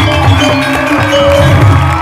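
Balinese gamelan music: struck metallophones ringing out a melody over a low, repeating beat.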